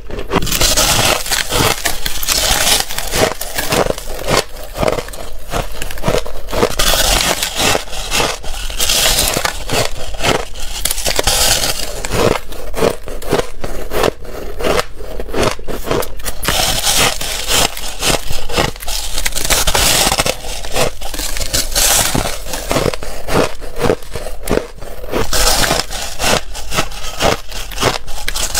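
Crushed ice being bitten and chewed close to a clip-on microphone: dense, continuous crunching and crackling.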